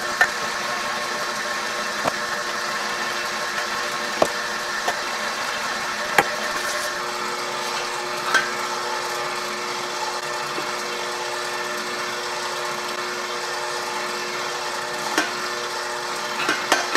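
KitchenAid Professional 600 HD stand mixer running steadily on a low setting, driving a meat grinder attachment that is grinding chicken breast; the motor gives an even whine of several steady pitches. A few short knocks sound here and there.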